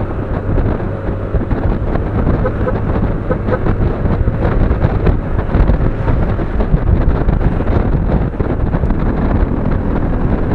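Steady rush of wind on the microphone of a moving motorcycle, with the motorcycle's engine and road noise underneath.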